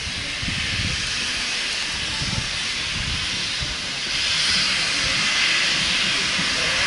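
Steam locomotive hissing steam: a steady hiss that gets louder about four seconds in.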